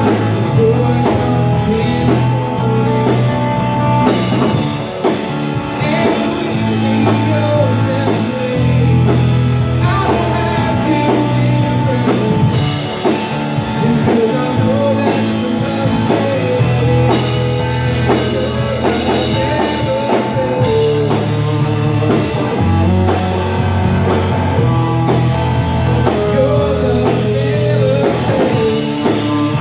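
Live band playing a contemporary worship song: drum kit, bass, acoustic and electric guitars, with a man singing the lead vocal.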